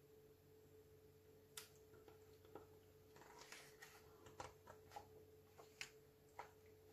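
Faint scattered clicks and paper crackles of a picture-book page being handled and turned, over near silence with a faint steady hum.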